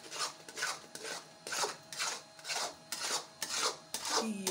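A spoon scraping and stirring thick egg halwa mixture around a metal pan, in rhythmic rasping strokes about twice a second.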